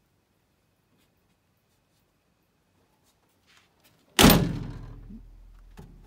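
1959 Land Rover Series II aluminium-skinned cab door slammed shut once, about two-thirds in: a loud bang that rings on and dies away over a second or so.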